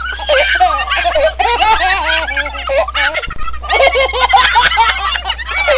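People laughing heartily in rapid, repeated bursts, breaking off briefly about three seconds in, over a steady low hum.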